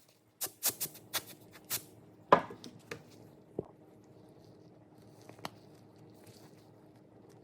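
A quick run of sharp taps and clicks, about five in the first two seconds, then one louder knock, a few faint ticks and a low room hum.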